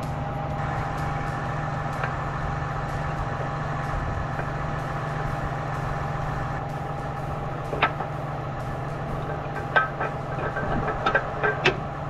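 Farm tractor's diesel engine idling steadily, with a few sharp clicks in the second half as the cultivator is unbolted from the three-point linkage.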